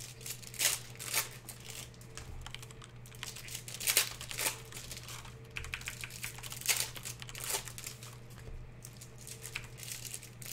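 Scattered light clicks and crinkling as plastic-wrapped trading cards and their packaging are handled, over a faint steady hum.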